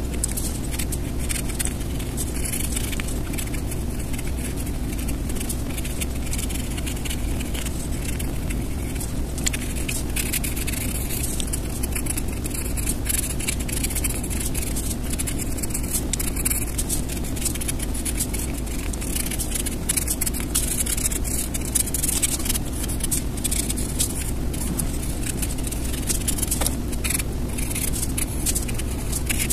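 Pencil scratching and rubbing on paper in many short sketching strokes, over a steady low rumble.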